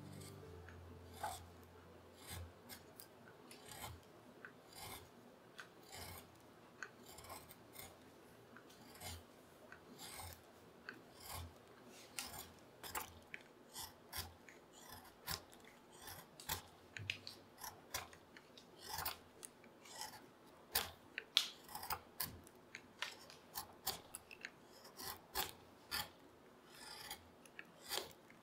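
Curved carving gouge pushed by hand through beech, each stroke a short scraping cut that lifts a curled chip. The strokes are sparse at first, then come quicker, about one to two a second, through the second half.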